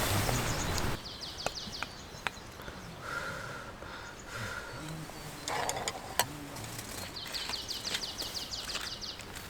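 Wild birds singing: two runs of rapid high trills and a few short whistled notes, with scattered sharp ticks. A loud steady hiss cuts off about a second in.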